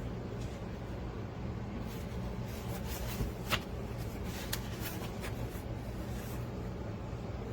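Portable air conditioner running with a steady low hum, with a few light clicks about halfway through.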